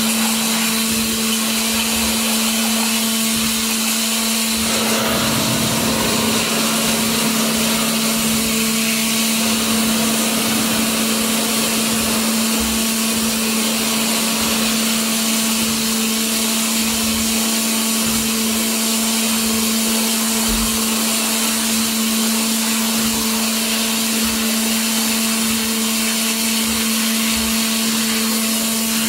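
Water jet cutter (2003 Waterjet WF 1630 CNC) cutting: the high-pressure jet hisses steadily over a steady hum. The sound grows fuller and rougher for a few seconds, starting about five seconds in.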